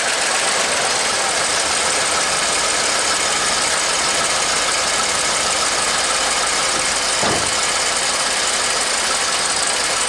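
A 1982 Dodge Power Ram's 360 cubic-inch V8 with a factory Carter Thermo-Quad four-barrel carburetor, running steadily just after a cold start. It is idling a little low, with no fast idle from the choke, which the owner suspects is out of adjustment.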